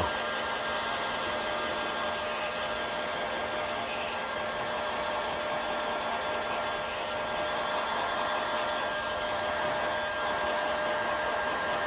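Electric heat gun running steadily: an even blowing hiss with a faint steady whine.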